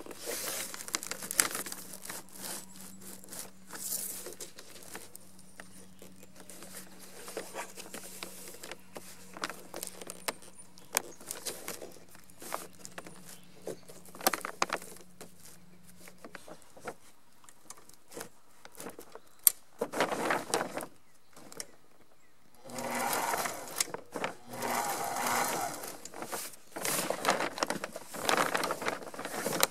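Plastic monofilm sail cloth rustling and crinkling as it is handled, with scattered taps and scrapes from fingers pressing tape along a seam. A faint steady low hum runs through the first half. Loud crinkling bursts of a second or two come in the last third, as the rolled sail is moved.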